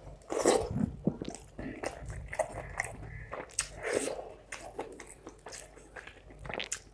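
Close-miked eating of rice and spicy fish curry: wet chewing and lip smacks with irregular small clicks and crunches.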